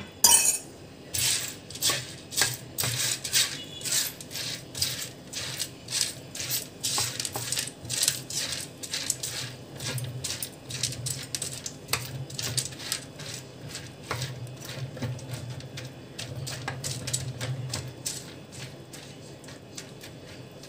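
Silicone spatula stirring squash seeds, wet with salted water, around a metal pan for roasting: the seeds scrape and clatter against the pan in quick strokes, about two or three a second, softer toward the end.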